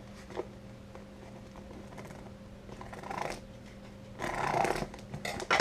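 A knife being worked through a mail package's tape and plastic wrapping, scraping and rasping about four seconds in with a sharp rip near the end, over a steady low hum in the room.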